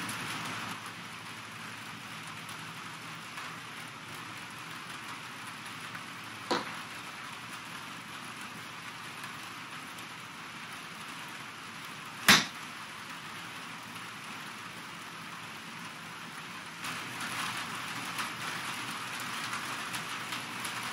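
Steady rain hiss, with one crisp, sharp click about twelve seconds in as a wedge strikes a golf ball off a hitting mat. A fainter tap comes about six seconds in, and the rain grows a little louder near the end.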